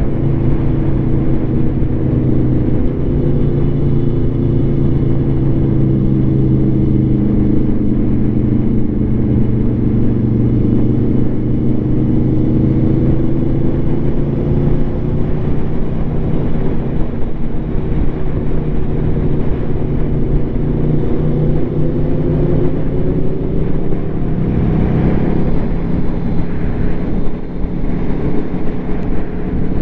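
Aprilia Tuono V4 motorcycle engine running through an SC Project slip-on exhaust at fairly steady cruising revs. Its pitch sags slightly, then climbs gradually, over a steady rush of wind noise.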